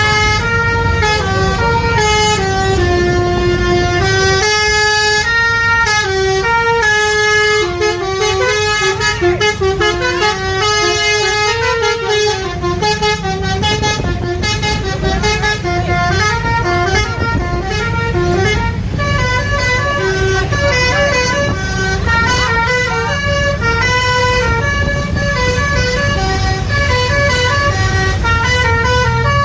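A bus's basuri musical air horn (telolet horn) playing a melody, several tones sounding together and stepping quickly from note to note, over the bus engine running.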